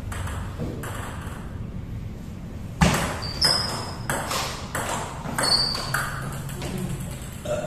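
Table tennis rally: the plastic ball is hit back and forth off rubber-faced bats and bounces on the table, a sharp knock every half second or so. The loudest hit comes about three seconds in, with a couple of short high squeaks among the knocks.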